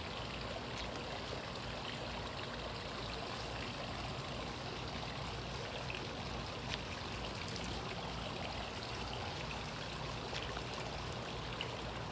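Steady, even rushing noise with a few faint clicks.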